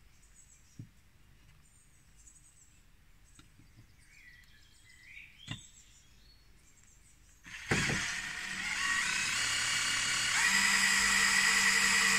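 Faint birdsong, then about seven and a half seconds in a cordless drill-driver starts driving a self-drilling screw into softwood framing, a steady motor whine that gets louder about ten seconds in and runs on to the end.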